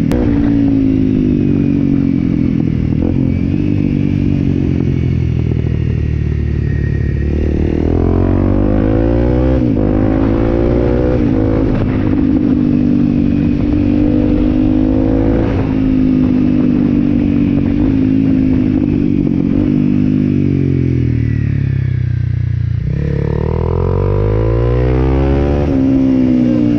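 Honda CRF250L's single-cylinder four-stroke engine running under way, its revs rising and falling again and again with throttle and gear changes. Late on the revs drop sharply, then climb again.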